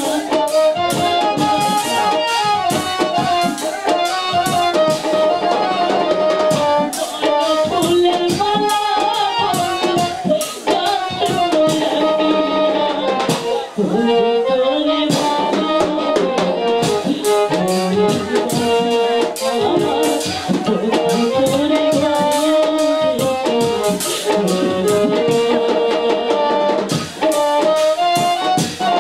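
Live Bengali folk song of separation (bicched gaan): a female singer's voice over a microphone and PA, backed by a band with drums and percussion keeping a steady beat.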